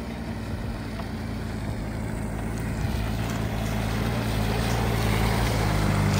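An engine running with a steady low hum, growing gradually louder.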